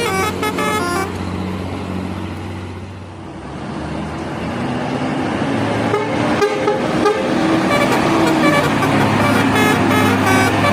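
Bus telolet horn, a multi-tone horn, playing a quick stepping tune for about the first second, then engine and road noise, and the horn tune starting again about six seconds in.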